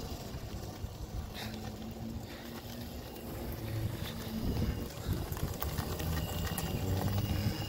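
Kids' 1000 W 48 V electric ATV running on asphalt: a steady low hum from the electric motor and the rumble of its knobby tyres, with a few light clicks and rattles.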